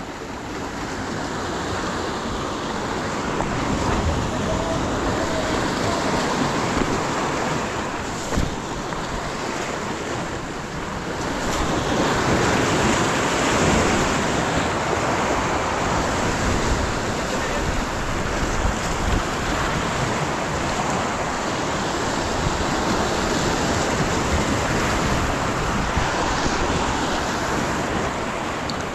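Surf breaking and washing over the rocks of a sea jetty, an unbroken rush that swells louder for a few seconds before the middle, with wind buffeting the microphone.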